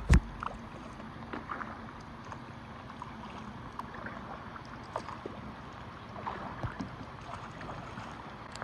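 A kayak being paddled on a river: water lapping and dripping against the hull, with scattered small splashes. There is one knock right at the start.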